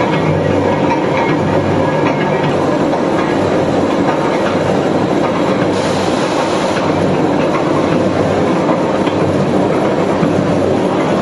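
Steady, loud rumble and clatter of running industrial machinery in a large hall, with no separate press strokes standing out. A brief hiss comes about halfway through.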